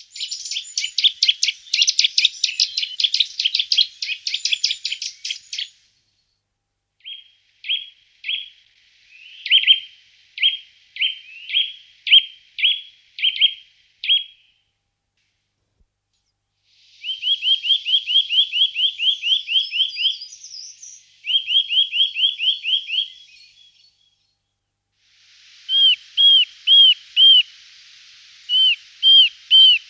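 Field recordings of small songbirds singing. First comes a fast, dense trill lasting about six seconds, then a series of short, sharp notes. After a pause come two rapid runs of rising notes, and near the end clear, slurred notes repeated in pairs and threes.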